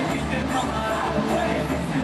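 Music playing steadily, with some faint voices underneath.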